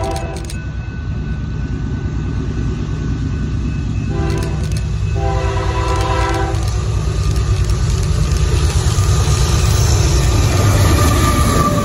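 Union Pacific diesel freight locomotive's multi-chime air horn: the tail of one long blast, then a short blast and a long blast, the closing short-long of the grade-crossing signal. Under it, the low rumble of the approaching locomotives and train grows louder toward the end as they draw level.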